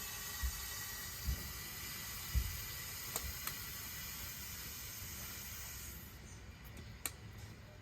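Steady hiss of water rushing through the pipe as the water supply is turned back on, refilling and pressurising the line to the outside tap; it dies away about six seconds in. A few soft low knocks in the first few seconds and a couple of faint clicks.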